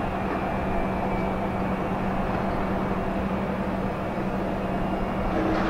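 Steady low drone of container-port machinery, with one constant hum; a short higher tone joins near the end.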